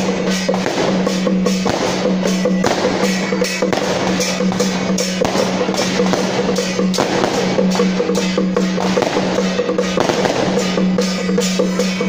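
Temple procession percussion band: large hand gongs and drums struck in a rapid, dense beat over a held ringing tone, with sharp crashes throughout.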